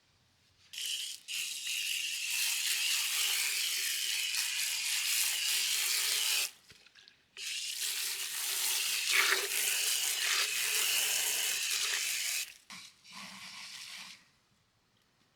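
A steady rushing noise that starts abruptly, stops after about six seconds, then runs again for about five seconds, with a short quieter burst near the end.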